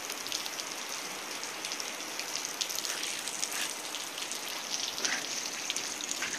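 Steady rain falling, a continuous hiss with many individual drops ticking close by.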